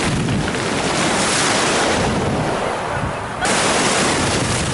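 Sea surf breaking in the shallows, a steady rushing wash of foam. It gets suddenly louder about three and a half seconds in as a bigger wave breaks.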